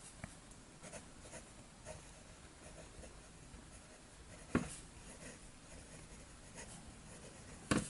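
Pineider Avatar fountain pen's medium steel Bock nib writing in cursive on Clairefontaine paper: faint nib-on-paper writing sound, with a single short tap about halfway through.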